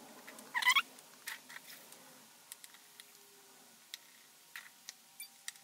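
Small clicks and taps of tools and tiny parts being handled during iPhone 4S reassembly, with a short, loud squeak about half a second in, followed by scattered light ticks.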